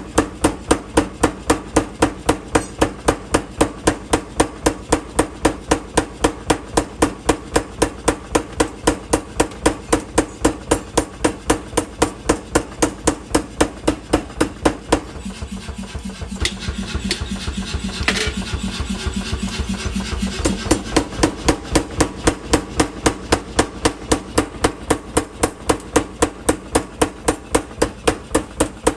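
Mechanical power hammer pounding hot steel for a sickle blade in a fast, even rhythm of about three blows a second. The blows stop for about five seconds past the middle, leaving a lower steady running sound, then start again.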